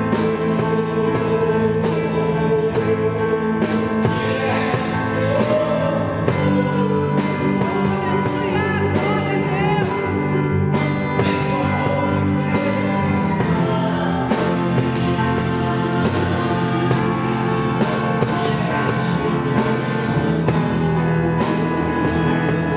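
Worship song played on an electronic keyboard with a drum kit keeping a steady beat, with some singing over it.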